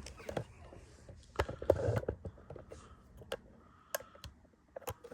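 Light clicks and knocks of tools and bike parts being handled, with a short louder clatter about one and a half seconds in and a few single sharp clicks near the end.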